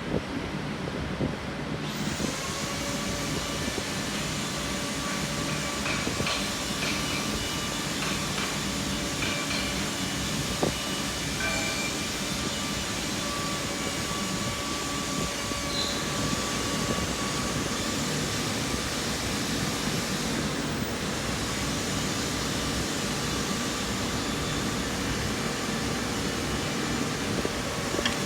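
A steady machine hum with a hiss that comes on about two seconds in, and a few light clicks.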